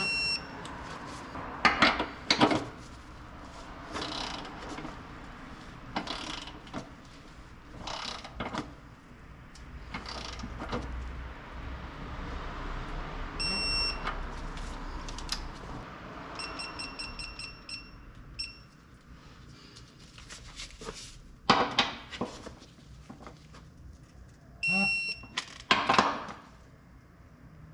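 Short, high electronic beeps, some single and one fast run of them, between irregular metallic clicks and clanks of hand-tool work on the car.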